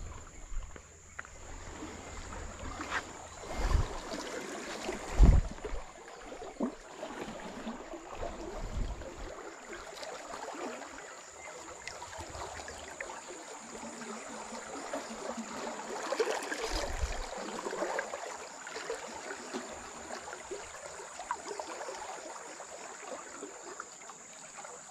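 Fast-flowing river water rushing steadily, broken by a few dull low thumps in the first two-thirds, the loudest about five seconds in.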